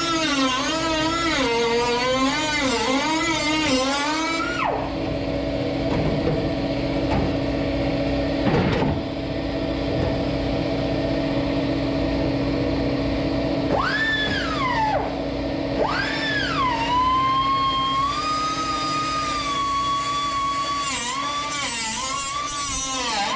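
A high-speed handheld metal-cutting tool working the old sheet metal of a 1965 Mustang's rear panel, its pitch sagging and recovering as it bites. It stops about five seconds in, is blipped twice, then runs again in the last few seconds.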